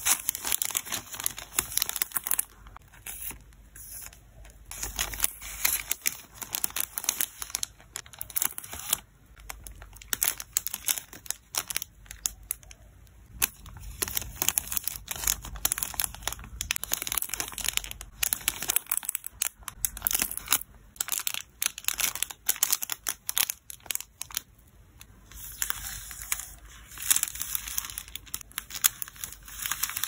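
Clear plastic card sleeves and cellophane packing bags crinkling and rustling in the hands as photocards and a wrapped konjac jelly are slipped in and the bags sealed, in irregular runs of sharp crackles with short pauses.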